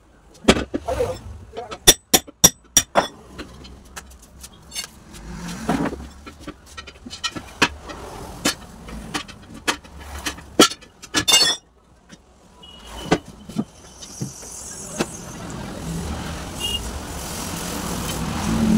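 Hammer and steel tyre levers clanking against a tractor tyre's steel rim as the tyre is broken off: a quick run of sharp metal strikes in the first few seconds, then scattered clinks and knocks. A motor vehicle passes on the road late on, growing louder toward the end.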